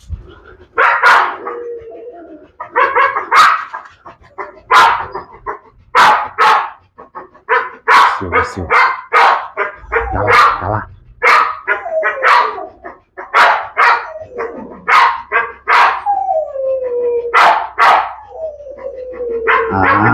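Pit bull barking repeatedly, about one bark a second, with drawn-out whining tones between barks in the second half.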